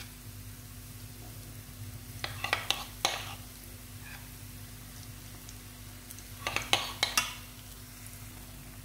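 Besan batter dumplings (bhallas) deep-frying in hot oil with a steady sizzle. Two clusters of sharp clicks, about two seconds in and again near seven seconds, from the metal spoon knocking against the pan as more batter is dropped in.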